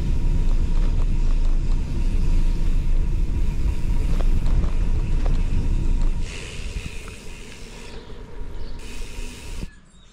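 Wind buffeting the microphone with road noise while riding a bicycle: a loud low rumble that eases about six seconds in and drops away just before the end.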